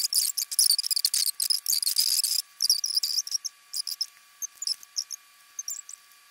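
Small paintbrush scratching across textured canvas in rapid, irregular strokes, a dry high-pitched scraping that thins out and stops near the end.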